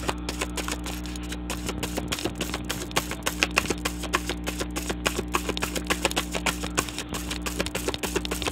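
A deck of tarot cards being shuffled by hand, the cards clicking and flicking against each other in quick, uneven strokes several times a second.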